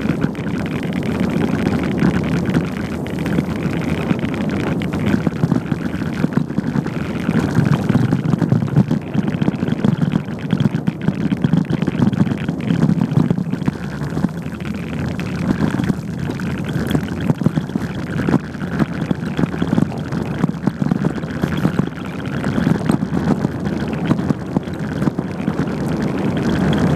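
Wind buffeting the microphone and the rumble of bicycle tyres rolling over a rough dirt field track during a ride, a continuous unsteady noise.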